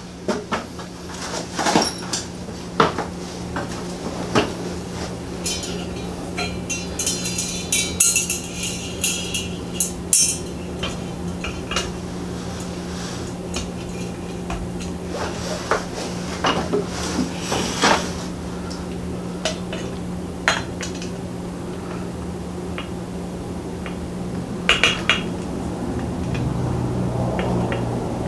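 Scattered clinks, clicks and knocks of a ceiling fan's light globe and its small retaining screws being handled and fitted against the light-kit housing, with a burst of rattling about a quarter of the way in. A steady low hum runs underneath.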